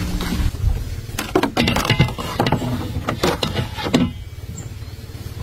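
A steady low hum cuts off about half a second in. Then comes a quick run of knocks and clattering, a small plastic boat and its wooden paddle being handled at the water's edge, which dies away about four seconds in.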